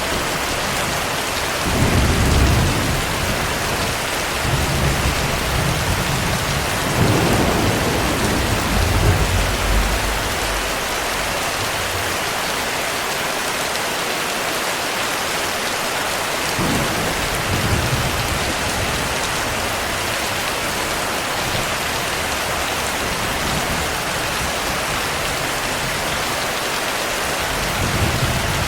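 Heavy, steady rain with rolls of distant thunder: a low rumble about two seconds in, a longer rolling stretch from about four to ten seconds, and shorter rumbles near seventeen seconds and at the end.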